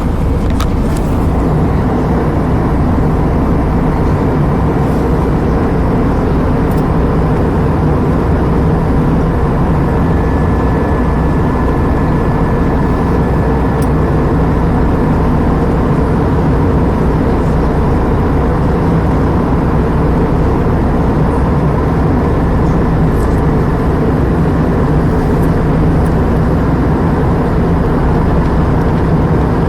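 Steady cabin noise of an Airbus A320 in flight: the even rush of engines and airflow, heaviest in the low range, with a few faint steady tones.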